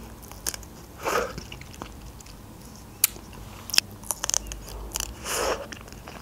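Pomegranate seeds being bitten and chewed close to the microphone: scattered sharp crunches and pops, with a few clustered together a little after the middle.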